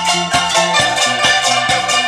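Ensemble of traditional Thai instruments playing a modern song: struck xylophone bars and a long-necked plucked lute over a quick, steady beat with a bass line.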